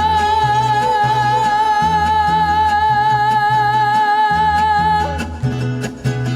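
Mariachi playing a huapango: a woman holds a long high sung note with vibrato over the band's strummed guitars and bass. The note ends about five seconds in, leaving the instruments playing on.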